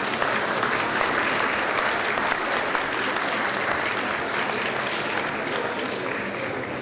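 Audience applauding, a dense even clapping that tapers off slowly toward the end.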